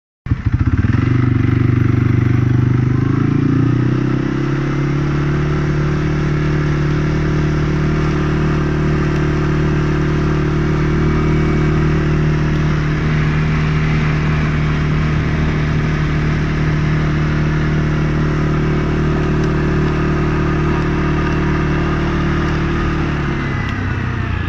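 Tractor engine running steadily while driving along, pulling a trailer loaded with silage. The engine note drops near the end as it slows down.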